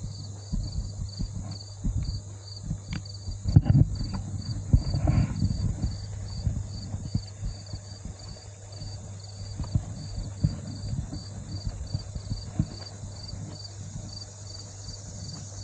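Footsteps thudding along a dirt path, heaviest a few seconds in, under an insect's high chirp that pulses steadily about three times a second.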